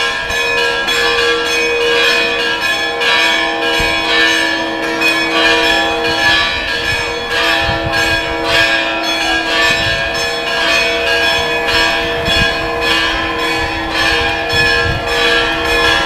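Church bells ringing a continuous peal, the strokes following one another closely so that their long-held tones overlap.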